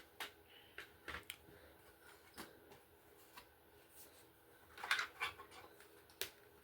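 Faint, scattered clicks and light rustling of small objects being handled, a little busier about five seconds in.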